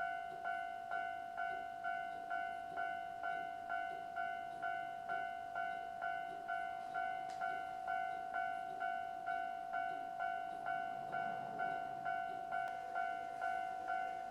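Japanese level crossing alarm from an electronic crossing-bell tone generator (Toho Denki oscillator unit, 1999) sounding its repeated ding a little over twice a second, each strike a bright ringing tone that quickly dies away. Its volume is held down by an attenuator in the equipment box.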